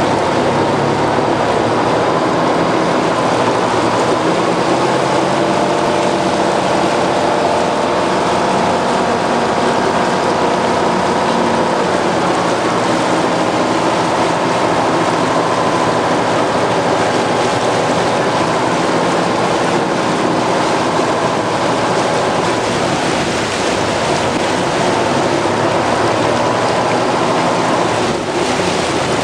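Motorboat engine running steadily under way, an even hum with the rush of water from the hull and bow wave.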